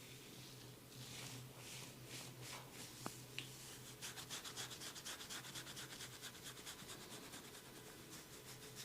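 A barber's hands rubbing rhythmically in a massage. The strokes quicken to several a second about halfway through, and there are two light clicks about a third of the way in.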